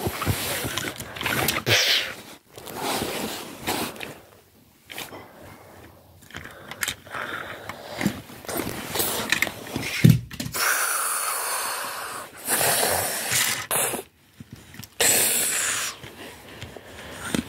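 Close handling noise: hands moving and scraping against a toy train and the recording device right at the microphone, in irregular rustling rushes with short breaks.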